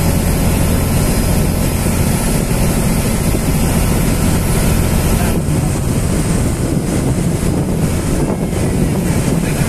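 Ferry boat's engine running steadily at cruising speed, a constant low drone, with water rushing past the hull.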